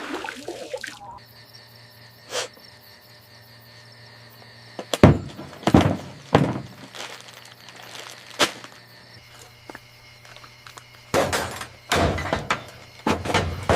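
A series of sharp thumps and knocks over a steady faint hum: a few single knocks about five to eight seconds in, then a quicker cluster near the end.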